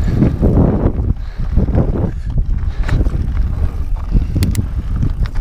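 Wind buffeting an action camera's microphone over the rumble and rattle of a mountain bike rolling down a dry gravel dirt trail. A couple of sharp clicks come about four and a half seconds in.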